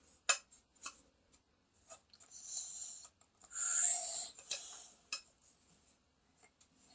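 Small plastic toys being handled: scattered light clicks and a few stretches of rubbing and scraping, the loudest about halfway through.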